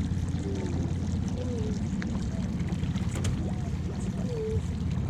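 Boat's outboard motor running steadily at low speed, a constant low drone, with a couple of light knocks about two and three seconds in.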